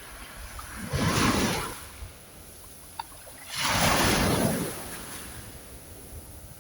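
Ocean waves washing in: two surges of surf about three seconds apart, each swelling quickly and fading away, over a steady hiss.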